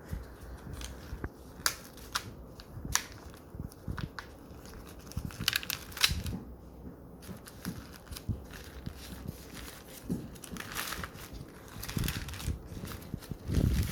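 Takeaway food packaging being handled and opened: irregular crinkling, crackling and sharp clicks.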